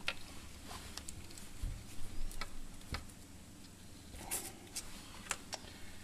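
Small objects being handled by hand: scattered light clicks and taps, with a soft bump about one and a half seconds in.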